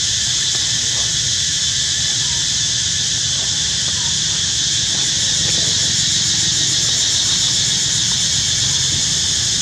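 A steady, high-pitched insect chorus, with a few faint short squeaks about two and four seconds in.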